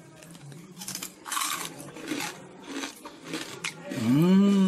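Crisp pork crackling (pururuca) crunching in several short bursts as it is cut into pieces. Near the end a person hums a long 'mmm' that rises and then holds its pitch.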